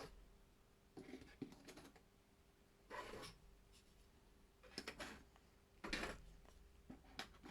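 Quiet handling of 3D-printed plastic insert holders in a cardboard game box: a series of short scrapes and light knocks, one every second or so.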